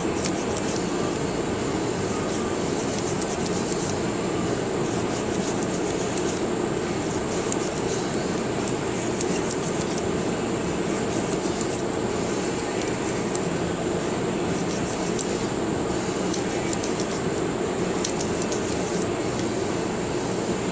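Cleaning-rod brush scrubbing back and forth through the chambers of a nine-shot .22 revolver cylinder, in irregular runs of short, light scratching strokes that come and go. Under it runs a steady background rush of noise.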